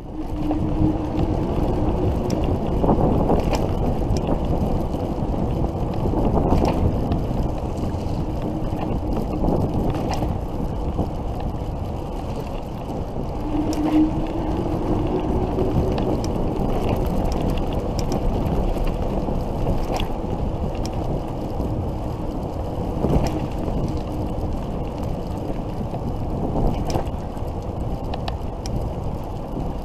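Wind rushing over the microphone and tyre rumble from an electric bicycle riding along a paved path. A faint whine that rises slightly comes in twice, and a few sharp clicks sound along the way.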